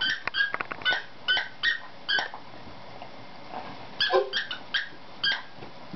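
A dog's squeaky toy squeaking again and again as a saluki chomps on it, short squeaks of the same pitch about two to three a second, with a pause of about two seconds in the middle.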